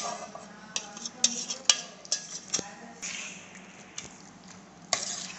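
Spoon stirring wet masala paste into cooked jackfruit pieces for pickle, with a squelching scrape and several sharp clinks of the spoon against the vessel.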